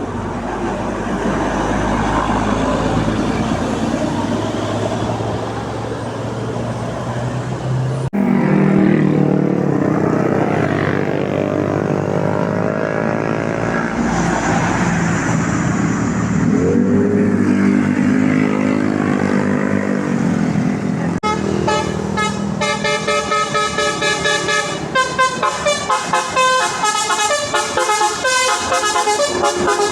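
A bus's engine runs as it passes. After a cut, bus telolet horns play: held multi-note chords with sliding notes, then from about two-thirds of the way in a fast melody of quickly changing notes that stutters in rapid pulses near the end.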